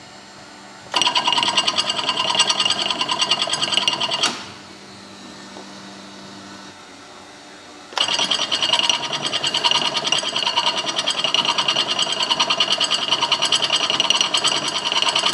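Auger powder filling machine running two dosing cycles of whey protein powder, a short one and a longer one. Each cycle starts and stops abruptly as a loud, fast, even mechanical rattle, with a quieter steady hum in the gap between them.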